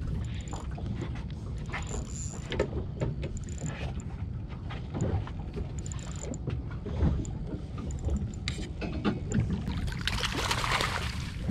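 Water and wind noise aboard a small fishing boat: a steady low rumble with scattered light knocks and clicks. A louder rush of noise about ten seconds in.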